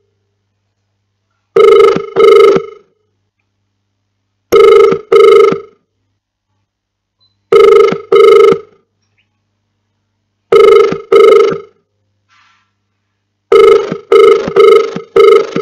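Telephone ringback tone of an outgoing call: a double "ring-ring" repeating about every three seconds, the sign that the called phone is ringing and not yet answered. Near the end the rings come closer together in a quicker run of pulses.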